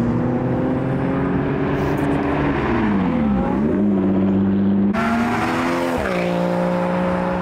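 Sports car engines running as cars drive off. About three seconds in, the engine note drops and climbs again. After an abrupt cut near five seconds, another car's engine falls to a steady lower note.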